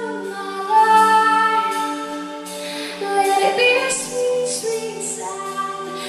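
A woman singing a slow song in long held notes over steady instrumental accompaniment.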